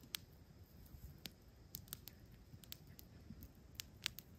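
Wood campfire crackling faintly: scattered sharp pops and snaps at irregular intervals, about one every half second.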